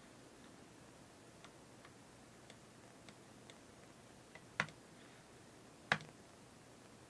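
Computer mouse clicking: a few faint clicks, then two louder single clicks a little over a second apart, past the middle.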